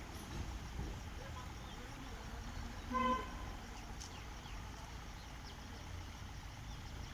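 A single short vehicle horn toot about three seconds in, over a steady low background rumble.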